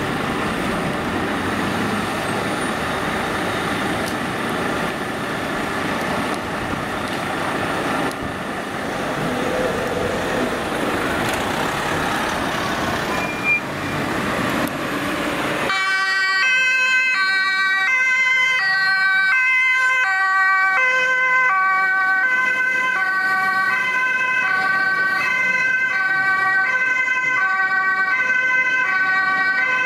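Fire engine's two-tone siren alternating between two pitches. For the first half it is partly buried in crowd and street noise; about halfway through it becomes loud and clear.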